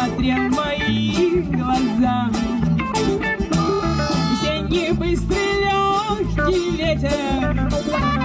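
Live band playing with a steady beat: drum kit, hand drum and guitars, with a woman singing.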